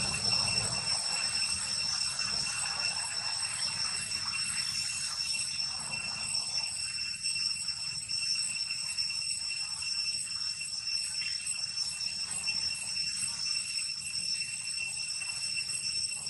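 Steady, high-pitched insect drone: one held tone with fainter overtones above it, unbroken throughout, over a low rumble.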